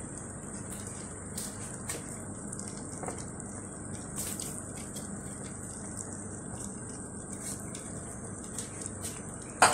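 Vegetable broth simmering in a metal pot, a steady bubbling hiss with a few faint ticks. A loud metal clatter of pot or utensil comes just before the end.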